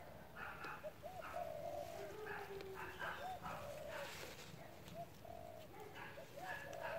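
A dove cooing: a short rising-and-falling note followed by a longer held note, repeated every second or two, with fainter higher bird chirps.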